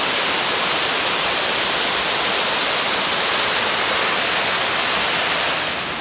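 Water from a small rocky cascade splashing into a stream: a steady rushing hiss that eases slightly near the end.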